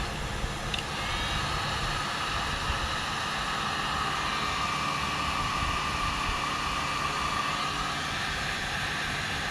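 Heat gun blowing steadily while shrinking heat-shrink tubing onto a lawn mower's front wheel axle, a continuous blowing hiss with a fan hum.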